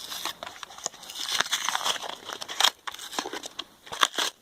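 Plastic or foil trading-card packaging crinkling and tearing as the pack is torn open by hand, in a run of quick crackles with a sharp louder tear near the end.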